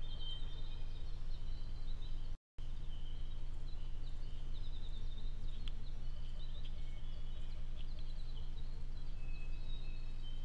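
Trail camera recording at night: a steady low hum and hiss from the camera, with many faint, short, high chirping calls from the woods. The sound cuts out briefly a little over two seconds in, where two camera clips are joined.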